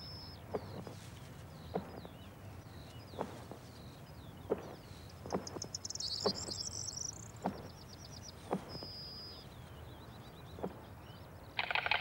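Small birds chirping, with scattered sharp knocks about once a second. Near the end a white stork starts a loud, fast, even bill-clattering rattle.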